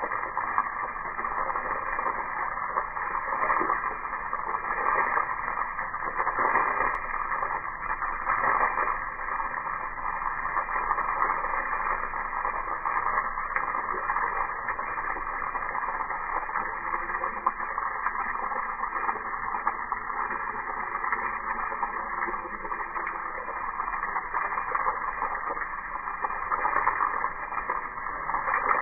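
Garden-hose water spray hitting grass and a block wall, slowed down in slow motion into a steady, muffled rushing hiss with no high end.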